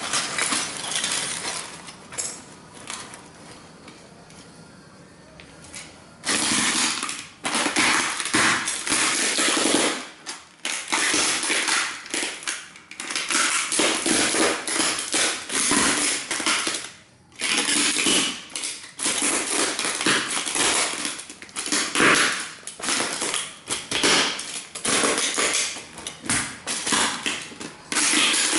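Cowboy boots stamping on and grinding a pile of broken model train building pieces: dense, continuous crunching and crackling that starts about six seconds in, with a couple of short pauses. Before that, quieter rustling as the cloth is lifted and the pieces are shuffled together.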